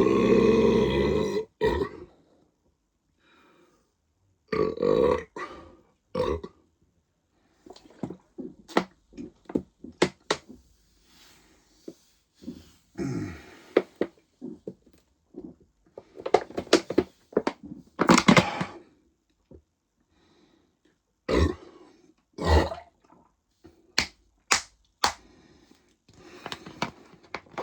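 A man burping loudly after gulping fizzy lemonade: one long, deep burp at the start and several shorter ones later, with short clicks between them.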